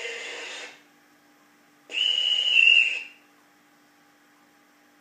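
Sound module in a KISS Gem 4/4 model locomotive playing a high horn call through the model's small loudspeaker. It is one blast of about a second that steps slightly down in pitch midway, over a faint steady hum.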